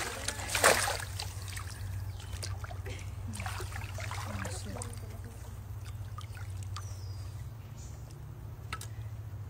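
Shallow river water splashing as a plastic container is scooped through it, twice in the first second. After that the water trickles and laps quietly around a person sitting in it, over a steady low hum.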